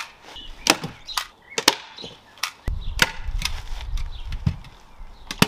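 Hand staple gun firing staples through carpet into the wooden cat-tree frame: a series of sharp clacks, about eight in all, roughly one every half second to a second.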